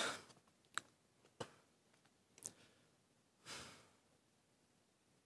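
Near silence at a speaker's microphone: a short breath right at the start and another about three and a half seconds in, with three faint clicks between.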